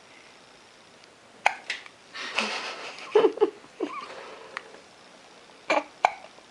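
A baby hiccuping. There is a short sharp hiccup about a second and a half in, then two more close together near the end. In between come a breathy rush and a few small voiced sounds.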